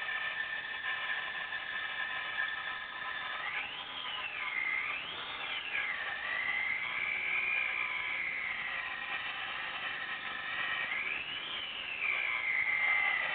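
BMW 323i 2.5-litre straight-six running and briefly revved three times, its whine rising and falling in pitch with engine speed. The owner reports an unexplained knocking and ticking from this engine.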